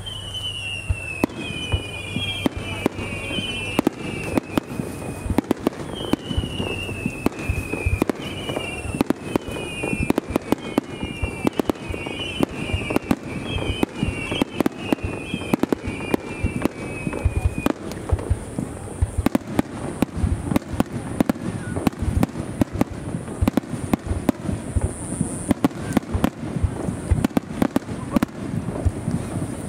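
Starmine fireworks display: aerial shells bursting in rapid succession, a dense run of booms and crackles. Over the first half or so, a series of falling whistling tones rides over the bursts.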